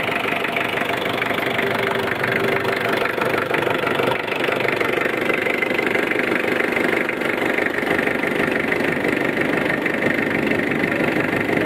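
Mitsubishi 4D56 2.5-litre four-cylinder diesel engine idling steadily, freshly started to check for oil leaks at its newly replaced front oil seals.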